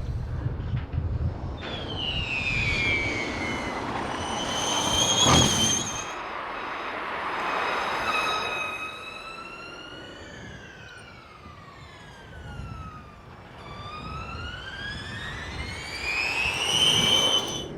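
Nissan Formula E electric race car's drivetrain whine. A car passes close about five seconds in, with a loud peak and the whine dropping in pitch. Later the whine falls as the car slows, then rises steadily as it accelerates near the end.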